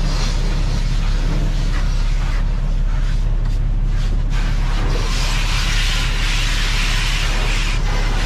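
Truck wash pressure-washer spray hitting the cab and windshield, a steady hiss that grows much louder about five seconds in and eases near the end, over the constant low rumble of the truck's diesel engine idling.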